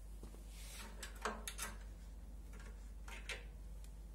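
A few short, faint clicks and light knocks: a quick cluster of three about a second in and a single one about three seconds in, over a low steady hum.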